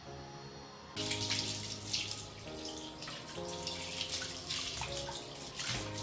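Tap water running and splashing into a bathroom sink over a kitten being bathed, starting suddenly about a second in. Soft music plays throughout.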